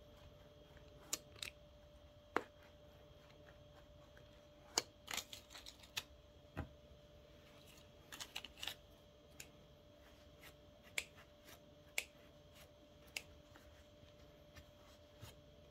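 Scissors blades clicking and scraping faintly, scattered and irregular, as they are worked into the stuffed neck of a crocheted doll to open a space in the fiberfill.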